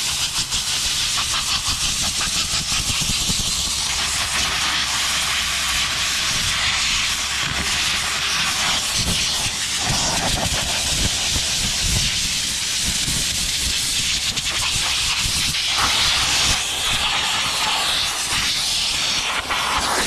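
Compressed-air blow gun giving a long, continuous hissing blast that swells and eases as the nozzle is moved, blowing loose dirt and rust off a tractor engine's valve cover and head before the cover is lifted off.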